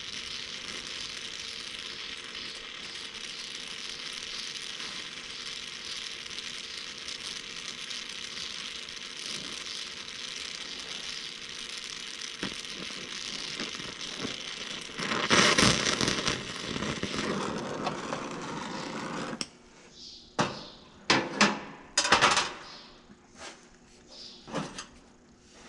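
Oxy-acetylene torch flame hissing steadily while heating through sheet metal for a plug weld, with a louder surge about fifteen seconds in. The hiss stops suddenly a little before two-thirds of the way through, and a few sharp knocks and clatters of metal follow as the torch is set down on the steel cart.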